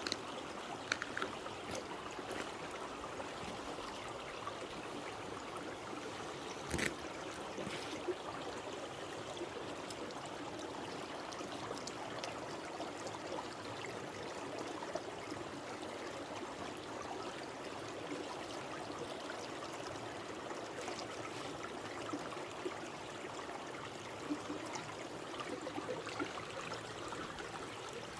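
Stream water running steadily, with a single sharp knock about seven seconds in.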